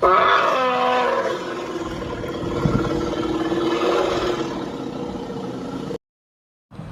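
Dinosaur roar sound effect: a loud roar that starts suddenly and falls in pitch over the first second, then a long rough call for about five more seconds before it cuts off.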